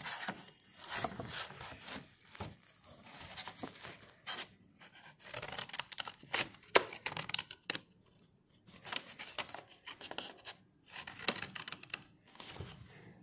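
Scissors cutting through a folded sheet of A4 paper in a series of short snips, with brief pauses between runs of cuts.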